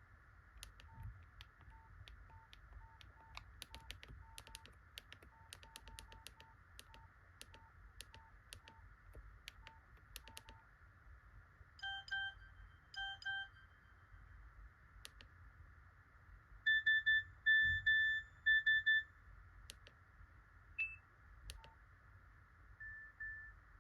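Nokia 3109 classic mobile phone being operated: a run of keypad clicks, most followed by a short key beep, then a few short electronic beep patterns from the phone's speaker, including a quick series of about five beeps.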